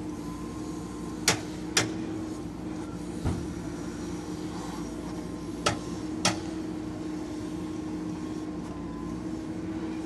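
JCB 3DX backhoe loader's diesel engine running steadily, with two pairs of sharp metal knocks from the backhoe arm and bucket, about a second in and again around six seconds, and a duller thump about three seconds in, as the bucket empties soil into a dump truck.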